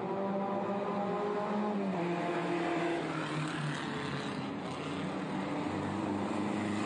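Pre-war racing car's engine running at speed on a street circuit. Its note holds, then drops a little about two to three seconds in as the car goes by. A lower engine note comes up near the end.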